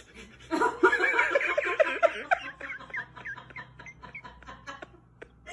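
A person laughing in quick, high-pitched bursts that fade into fainter giggles.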